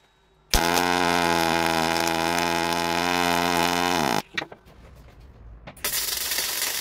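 TIG welding arc buzzing steadily for about three and a half seconds, a steady pitched buzz typical of AC TIG, dipping in pitch just before it cuts off. After a short gap with a few clicks, a welding arc starts again near the end with a harsh, crackling sizzle.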